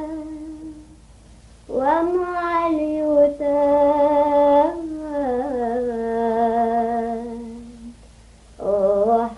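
A woman singing slowly with no accompaniment: long held notes that slide up into pitch and waver, in phrases starting about two seconds in, about five seconds in, and near the end, with short pauses between them.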